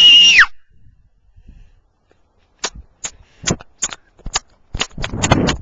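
A girl's high-pitched scream breaks off about half a second in. After a pause comes an irregular run of about a dozen sharp clicks and knocks, closing together into a short rattling patch near the end.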